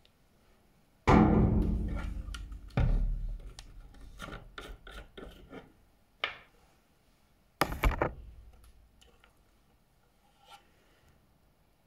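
Bench handling noise as reagent bottles and a dropper are picked up and moved: three heavy knocks, about a second in, near three seconds and near eight seconds in, with small clicks and scrapes between them.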